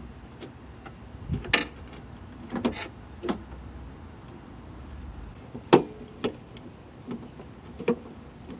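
Irregular clicks and knocks of a car's exterior door handle and its linkage being worked into place inside the door, about six separate knocks with the loudest a little before six seconds in.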